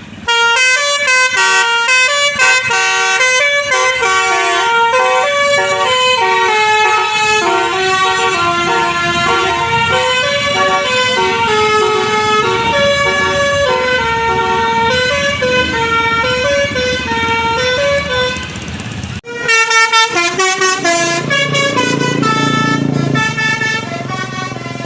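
Bus musical air horn (klakson basuri) playing a melody in held, stepping notes. It breaks off suddenly about three-quarters of the way through, and another horn tune starts.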